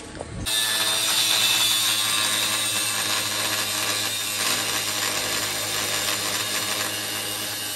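Power tool cutting a steel plate, starting about half a second in and running steadily.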